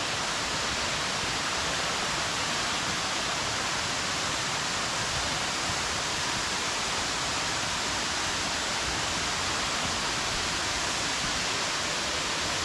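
A waterfall in high flow: a steady, unbroken rush of falling water.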